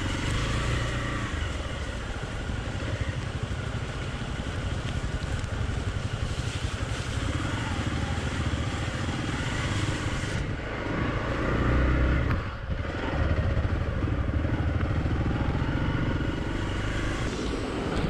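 Hero XPulse 200 single-cylinder motorcycle engine running as it is ridden along an off-road trail. The engine note rises and falls, with a brief drop about twelve seconds in.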